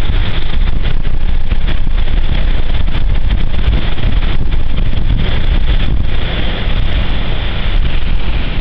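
Storm-force wind buffeting the microphone in a loud, steady rumble, over the hiss of a rough sea breaking against the promenade wall. The wind eases briefly about six seconds in.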